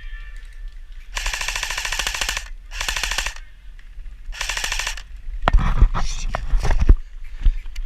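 Airsoft electric gun firing full-auto in three bursts, the first about a second long and the others shorter, each a fast rattle of shots. Near the end comes a run of loud, irregular thumps.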